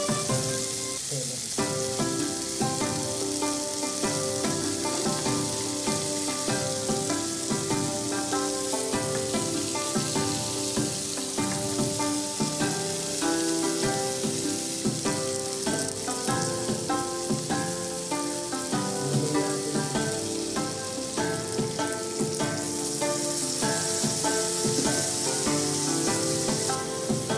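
Seared beef roast and chopped vegetables sizzling steadily in a frying pan, with instrumental background music playing over it.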